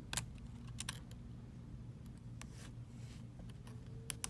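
Several small, sharp clicks and taps of tools and flex-cable connectors on an iPhone X as its screen and battery connectors are unsnapped, over a steady low hum.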